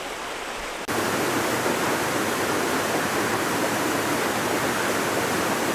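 Floodwater rushing, a steady loud roar of water; about a second in it cuts abruptly to a louder, fuller rush.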